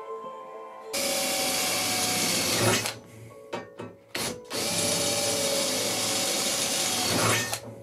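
Electric drill boring holes through aluminium angle. It makes two steady runs, about a second in and again from about halfway, with a short burst between them.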